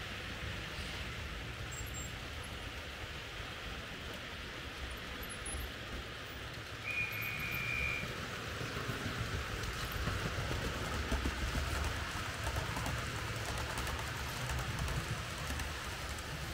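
Märklin H0 model trains running on the layout: a steady rolling rumble and hiss of wheels on track, a little louder in the second half. A brief steady whistle-like tone sounds once, about seven seconds in.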